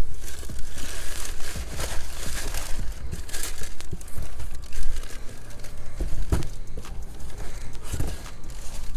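Packaging crinkling and tearing in irregular handling noise, with scattered clicks and knocks.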